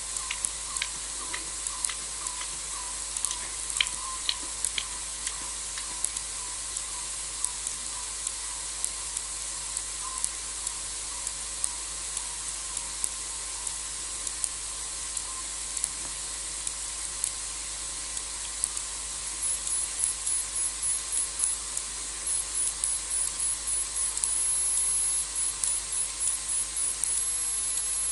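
Lioness lapping water: soft rhythmic laps about twice a second over a steady high hiss, which thin out and stop about halfway through as she finishes drinking. In the second half a high pulsing trill comes and goes in several runs.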